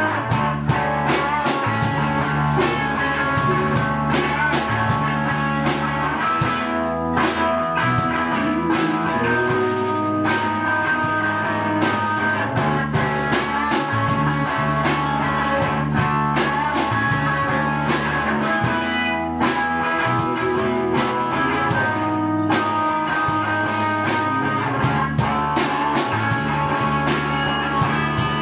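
Small rock band playing live: electric guitars over a drum kit keeping a steady beat.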